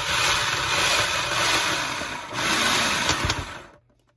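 Electric food processor running in pulses, its blade chopping chunks of meat and pumpkin. It dips briefly about two seconds in, picks up again, and stops abruptly near the end.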